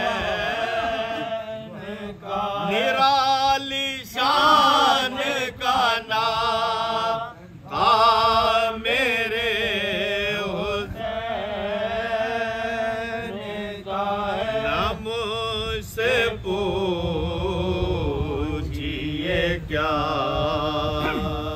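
Men chanting soz, the unaccompanied Urdu mourning elegy of a Muharram majlis: a lead reciter and his chorus of companions, holding long notes with a wavering pitch and pausing briefly for breath.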